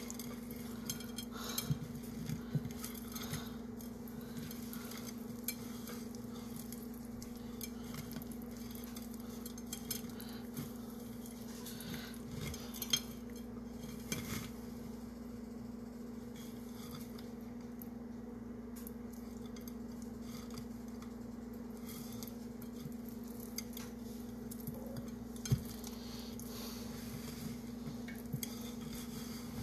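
Hands rubbing and pressing dry seasoning onto a raw pot roast on a plate: scattered soft pats, rustles and light taps against the plate, over a steady low hum.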